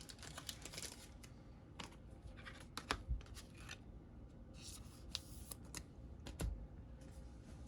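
Trading cards being handled: faint scattered clicks and short rustles of cards and card stock sliding against each other.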